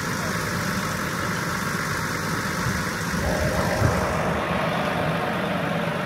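Vehicle engine idling steadily, a low continuous hum, with a brief knock about four seconds in.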